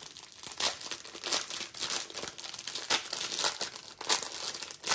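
Small plastic bags of round diamond-painting drills crinkling as they are opened and handled, with irregular sharp crackles throughout.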